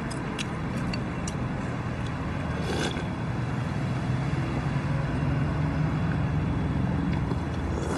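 Steady low hum of a motor vehicle's engine running nearby, swelling slightly in the second half. A short slurp about three seconds in comes from soup being drunk straight from a bowl.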